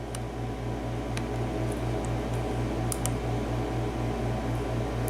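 A steady low hum that pulses about five times a second, with a few faint light ticks of a steel lock pick probing the pin stacks inside a padlock.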